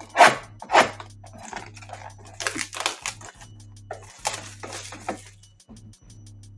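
A sealed trading card box being handled and torn open: two sharp rips near the start, then bursts of crinkling and scraping of plastic wrap and cardboard.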